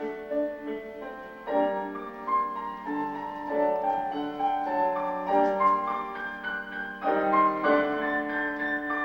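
Piano music: a flowing run of notes and chords, fuller from about a second and a half in and again near the end.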